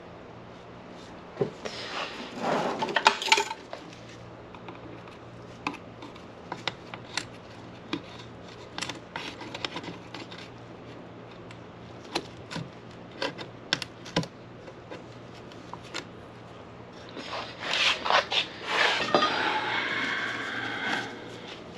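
Small metal tools and chainsaw recoil-starter parts clinking and scraping on a workbench while a new starter rope is fed through. Scattered sharp clicks, with two longer stretches of scraping and rattling, one a couple of seconds in and one near the end.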